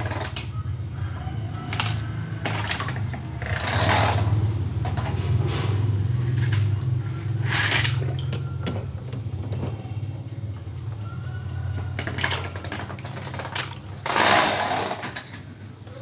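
Small plastic toy cars tipping one after another into a shallow tub of water, with several short splashes and a few light plastic clicks over a steady low hum.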